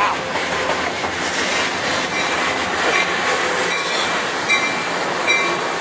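Bi-level passenger train cars passing at speed close by: a steady rush of steel wheels on rail. A few faint, short squeals come in over the second half.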